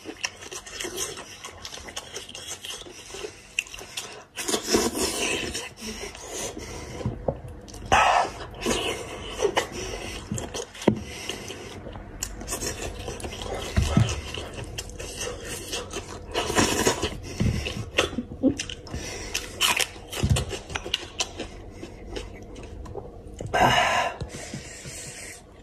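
Close-up eating sounds from hands-on eating of a braised goat's head: wet chewing and lip smacking, with irregular clicks and scrapes as meat is pulled off the skull by hand. Near the end a knife scrapes and pries against the skull bone.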